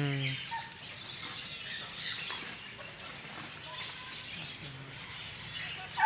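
Many small birds chirping together: a busy chatter of short, high calls overlapping, with a few lower single notes among them.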